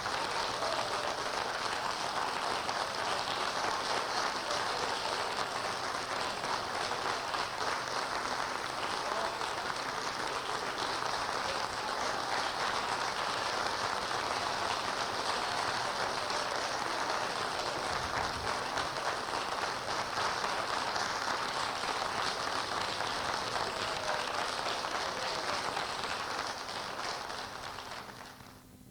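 Recorded applause sound effect: a large audience clapping steadily, fading out near the end.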